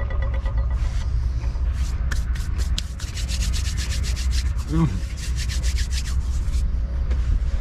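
Hands rubbed and brushed briskly together, brushing off toastie crumbs: a fast run of dry, scratchy strokes lasting about four seconds, over a steady rumble of wind on the microphone.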